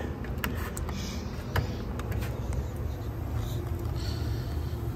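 A few light clicks, as of fingers on the cassette deck's front-panel buttons, over a steady low hum; the loudest click comes about one and a half seconds in.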